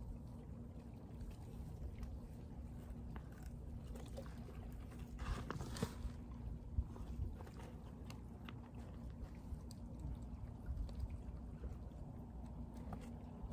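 Wind on the microphone, a low rumble that rises and falls. It carries scattered faint clicks, a louder rustle close to the microphone about five to six seconds in, and a sharp tick just after.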